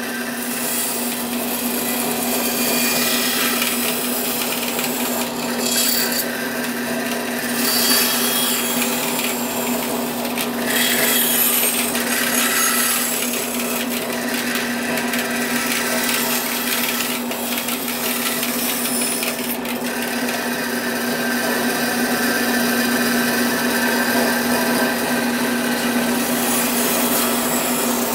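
Bandsaw running and cutting: a steady motor hum under the rasp of the blade, which grows and eases several times.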